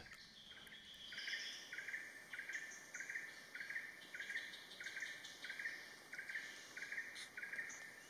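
Faint forest ambience: a short, high chirping call repeated about three times a second, starting about a second in, with a few thinner, higher calls over a soft hiss.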